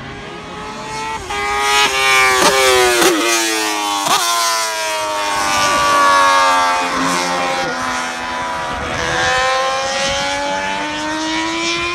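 Racing motorcycle engines at high revs, several bikes passing; the pitch climbs and drops sharply several times as they change gear, then rises steadily again near the end as a bike accelerates.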